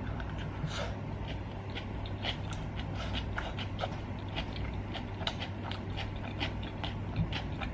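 Close-miked chewing of a mouthful of stir-fried rice cakes, a run of many small wet mouth clicks and smacks over a steady low hum.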